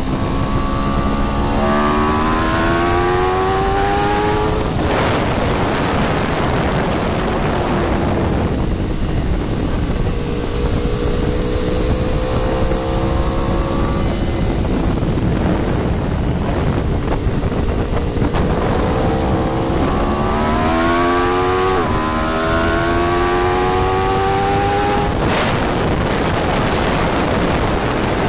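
Aprilia RSV4's V4 engine accelerating hard on track, its pitch climbing in long rising sweeps that break at each upshift, under loud wind rush. The engine pulls hardest in the first few seconds and again in the last third, then drops away near the end, leaving mostly wind.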